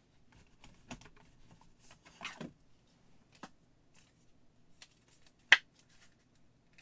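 Light handling noises: scattered soft clicks and a brief rustle a little over two seconds in, with one sharp click about five and a half seconds in.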